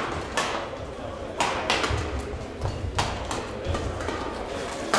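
Badminton rackets striking a shuttlecock in a rally: a series of sharp cracks about a second apart, with dull thumps of players' footwork on the court in a large echoing hall.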